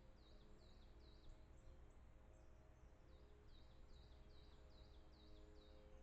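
A faint songbird singing in two phrases of quick, repeated downward-sliding whistled notes, about three a second, with a short pause in between, over a low steady hiss.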